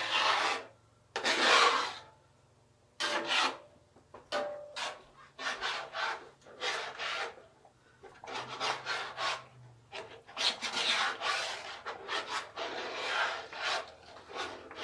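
Spatula scraping across the bottom of a large cast-iron skillet in repeated strokes while stirring thick sausage gravy, with a short pause about two seconds in.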